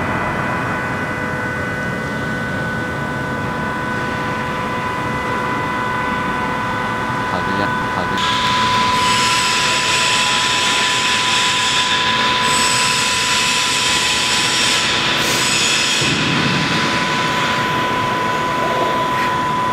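CNC tube-and-beam plasma cutting machine running, with a steady high whine throughout. About eight seconds in, a loud harsh hiss starts abruptly as the plasma torch cuts the steel section.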